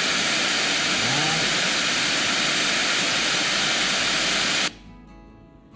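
Loud, steady FM radio static from the small waterproof Bluetooth speaker's built-in FM tuner, with no station tuned. It cuts off suddenly about four and a half seconds in as the radio starts scanning for stations, leaving it much quieter.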